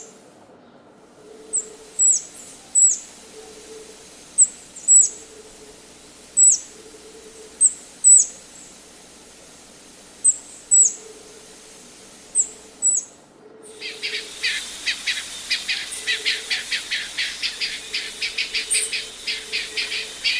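Black-crowned Palm-Tanager calling: high, sharp notes that slur steeply downward, mostly in pairs, every second or two. After a short break about two-thirds of the way through, a fast run of repeated bird chips, several a second, takes over.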